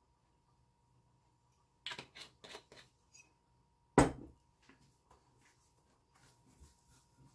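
A glass olive oil bottle handled over a ceramic plate: a quick run of light clicks and taps about two seconds in, then one sharp knock about four seconds in, the loudest sound, as the bottle is set down. Faint ticks and rubs follow.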